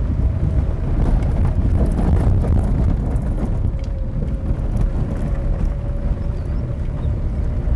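Vehicle on the move: a steady low rumble of road and wind noise, with a faint steady whine above it.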